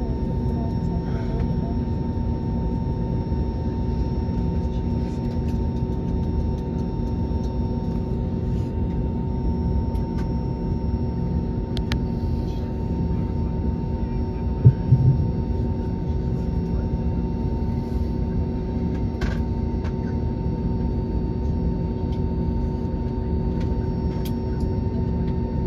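Steady rumble of an airliner cabin in flight, from the jet engines and airflow, with a few constant hums. A single short thump comes about fifteen seconds in.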